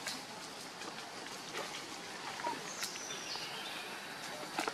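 Outdoor forest background: a steady hiss with scattered faint clicks and rustles in dry leaf litter. There is a faint high whistle about three seconds in and a few sharper clicks near the end.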